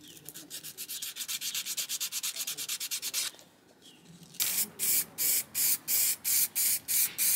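Sandpaper scrubbed by hand over a 3D-printed plastic part in rapid back-and-forth strokes, about eight a second. After a short pause about three seconds in, an aerosol spray-paint can hisses in short bursts about twice a second.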